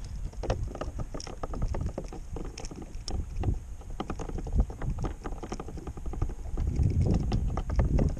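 Quick small clicks and knocks of hands unhooking a freshly caught mackerel from a hook rig on a plastic fishing kayak. Under them is a low wind rumble that grows louder near the end.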